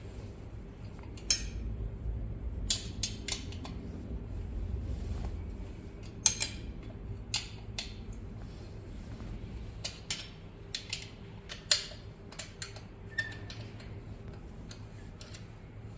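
Hand tools and small metal parts clinking and clicking at irregular intervals, a dozen or so sharp knocks, over a low steady hum.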